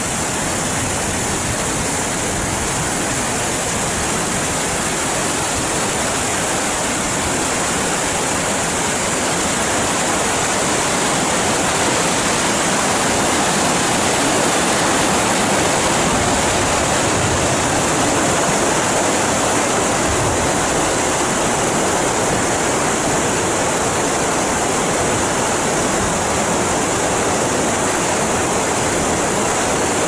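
Large alpine waterfall and the white-water mountain river below it: a loud, steady rush of falling and churning water.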